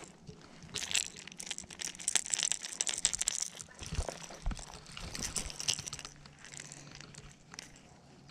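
Irregular rustling and crackling handling noise from gloved hands gripping a small bass and its topwater lure close to the microphone, densest in the first few seconds, with a couple of dull thumps about four seconds in.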